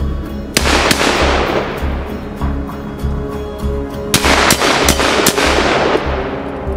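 Rifle shots over background music with a steady bass beat: two shots about half a second and one second in, then a quick string of about four shots between four and five and a half seconds in, each trailing off in a long echo.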